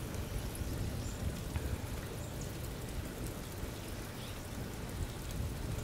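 Rain falling steadily: an even hiss with scattered drop ticks over a low rumble.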